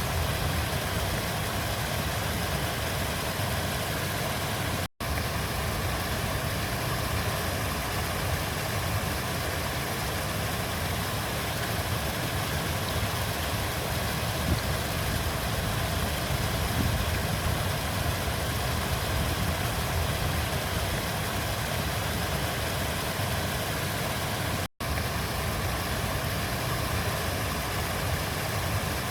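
River water flowing in a steady, unbroken rush, heaviest in the low rumble. The sound cuts out for an instant twice.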